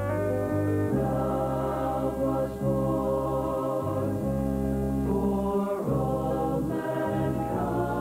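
Mixed choir of men and women singing slow, long-held notes over a steady sustained instrumental backing.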